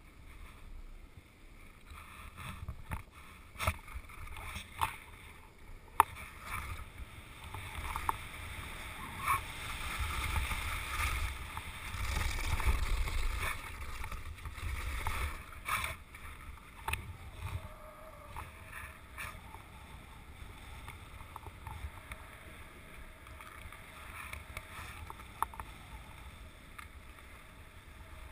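Skis hissing and scraping over snow-covered ice while kite-skiing. The sound swells about ten seconds in and eases off after about sixteen seconds, with scattered sharp knocks and a low wind rumble on the microphone.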